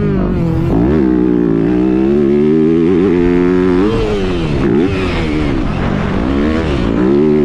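Yamaha motocross dirt bike engine heard from on board while riding the track, its pitch repeatedly rising and falling as the throttle opens and closes, with several sharp drops as the rider backs off.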